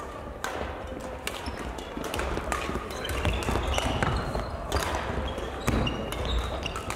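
Badminton rally on a sports-hall court: sharp racket-on-shuttlecock hits and quick footsteps, with brief high squeaks of court shoes on the floor.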